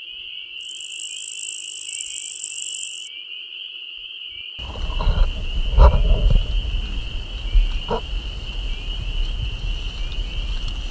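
Night-time forest chorus: a steady, high-pitched trill of calling animals, with a higher buzzing hiss joining it for a couple of seconds near the start. About halfway through, a low rumble with a few knocks comes in under the calls.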